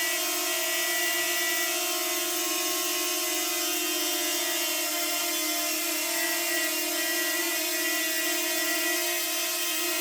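DJI Flip drone's motors and propellers humming steadily in flight, a stack of steady tones. A higher tone among them fades a couple of seconds in and comes back near the end.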